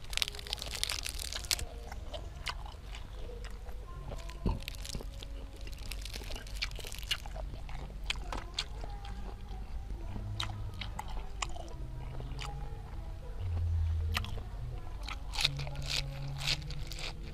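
Close-up eating sounds: crisp crunching and wet chewing as fresh lettuce leaves wrapped around grilled apple snail meat are bitten and chewed, with leaf rustling and small mouth clicks. A short low hum comes about two-thirds of the way through.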